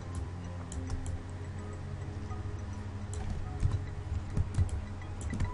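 Scattered clicks of a computer mouse and keyboard, in small clusters: a few near the start, a few about a second in, and several more later. A steady low hum runs underneath.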